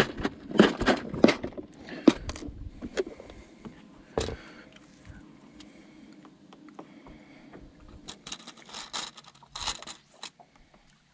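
Clear plastic tackle box being unlatched and opened, with sharp clicks in the first two seconds and a single knock about four seconds in, then fingers rummaging through its compartments of hooks and worm weights, a clattering rattle about eight to ten seconds in.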